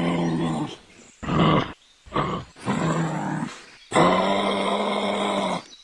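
Large animal calling: a run of drawn-out, low-pitched calls, each held steady for a second or more, with two shorter calls between them and brief pauses.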